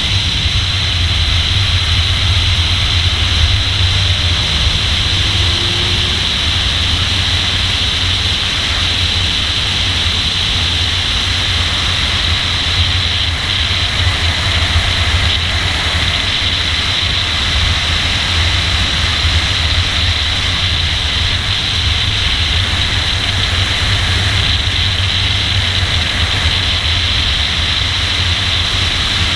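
Steady rush of wind and road noise on a hood-mounted camera as a car drives a race track at speed, with a low rumble from the car underneath.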